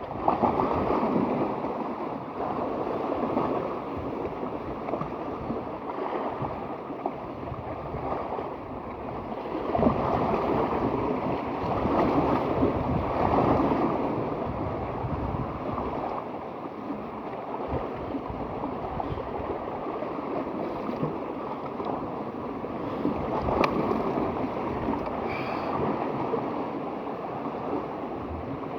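Sea waves washing onto the shore, swelling louder now and then, with wind rushing on the microphone.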